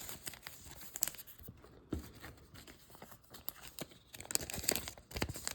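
Plastic card sleeves and wrappers crinkling and rustling as trading cards are handled, with scattered light clicks and taps, busiest near the end.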